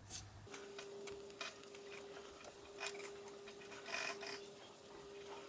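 Faint scratching and squeaking of a felt-tip marker being rubbed over the aluminium skirt of a Super Cub piston, colouring it to show where it rubs tight in the cylinder. A few louder strokes stand out, over a faint steady hum.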